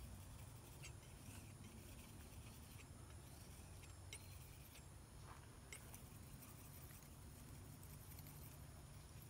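Near silence: faint outdoor room tone with a low hum and a few light, scattered ticks.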